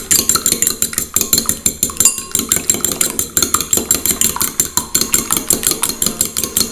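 A metal fork beating a raw egg in a ceramic bowl, its tines clinking rapidly and evenly against the bowl, about eight strikes a second.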